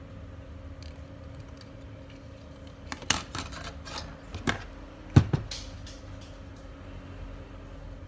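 Sharp clicks and knocks of a printer circuit board and hand tools being set down and handled on a wooden workbench, a cluster starting about three seconds in with the loudest knock a little after the midpoint. A steady low hum runs underneath.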